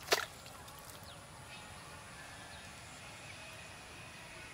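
Quiet rural outdoor ambience with faint bird chirps, and one short sharp noise right at the start.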